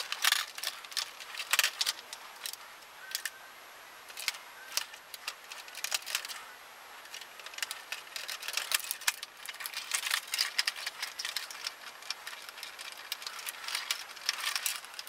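Plastic RC truck body shell being lifted off and fitted back onto its chassis: irregular plastic clicks, taps and rattles.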